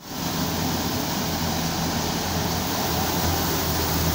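A tractor-driven wheat thresher running steadily while wheat is fed in. The Massey Ferguson 375's engine drones beneath the even noise of the threshing drum and fan.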